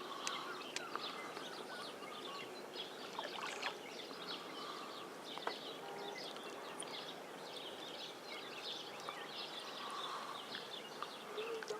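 Quiet evening lake ambience: a steady faint hiss dotted with many small, scattered bird chirps, with an occasional faint click.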